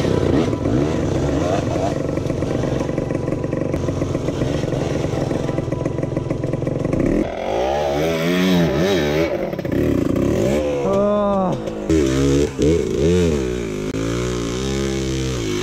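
Dirt bike engine running steadily at high revs, then from about halfway through revving up and down over and over as the throttle is worked.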